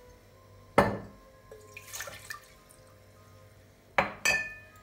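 Water poured from a mug into an empty cooking pot, with a sharp knock about a second in. Near the end a ceramic mug is set down with two knocks, the second with a short ringing clink.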